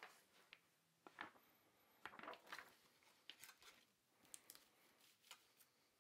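Near silence with scattered faint clicks and rustles of hands handling the opened laptop's screen panel and its cable.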